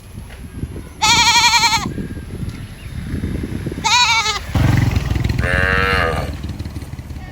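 Livestock bleating: two high, quavering bleats about a second in and again near the middle, then a lower, falling call near the end, over a low rumbling background.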